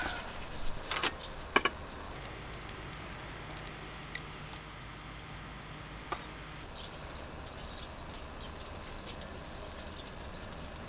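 A few light knocks and clicks from cups and a bottle being handled on a camp table in the first two seconds, then a faint steady outdoor background with an occasional single tick.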